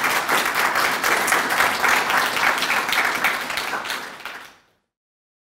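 Audience applauding after a talk, a dense patter of many hands clapping that fades out about four and a half seconds in.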